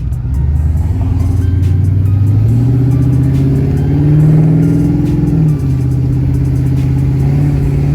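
LS V8 running through long-tube headers and a 3-inch Hooker BlackHeart header-back exhaust, accelerating under load with the pitch climbing for about five seconds, then dropping suddenly as the automatic transmission upshifts, before pulling steadily again.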